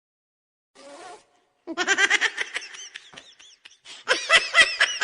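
Laughter sound effect: a brief sound just before a second in, then a run of quick, high-pitched laughs in rapid pulses, loudest from about four seconds in.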